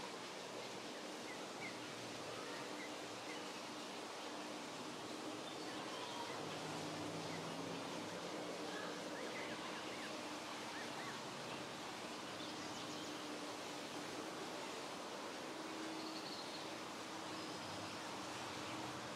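Outdoor ambience: a steady hiss with a faint low hum underneath and scattered faint bird chirps.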